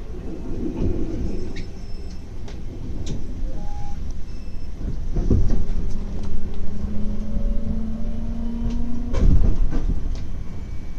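Electric commuter train running slowly, heard from aboard: a steady low rumble with scattered knocks from the wheels and track, and a motor tone that rises slightly for a few seconds past the middle. The loudest sound is a heavy knock about nine seconds in.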